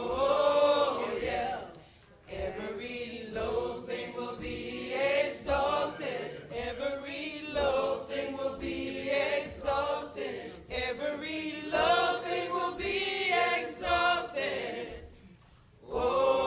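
Gospel choir singing in harmony, with held, drawn-out notes. The voices break off briefly about two seconds in and again near the end before coming back in.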